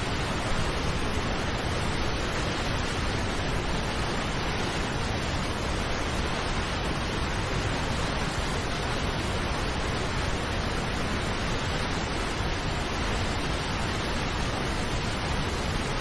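Steady, unbroken rush of a large waterfall in heavy flood, masses of white water pouring over rocky ledges, the noise even across low and high pitches.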